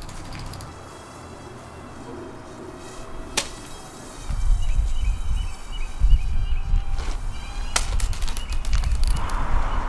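Wind buffeting the microphone: an irregular low rumble that gets much stronger about four seconds in. A few sharp clicks and faint high chirps sit over it.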